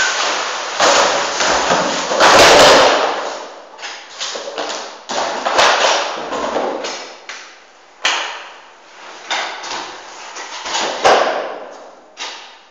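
A series of loud thumps and knocks, about six of them, each trailing off in a long echo off hard walls.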